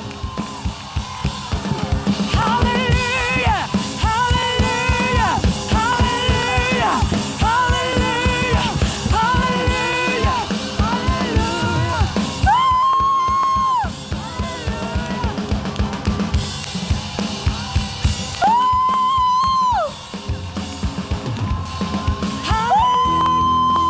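Live gospel praise music: a band with a fast drum-kit beat, with a voice singing held notes over it and the congregation clapping along.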